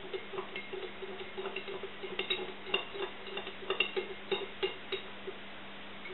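Metal absinthe spoon stirring in a stemmed glass, clinking quickly and irregularly against the glass wall with a short glassy ring. The clinks are loudest in the middle and stop a little after five seconds in.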